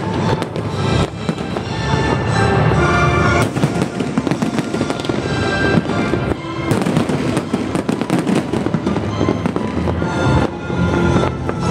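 Aerial firework shells bursting in a dense, continuous barrage of bangs and crackles, with music playing loudly alongside.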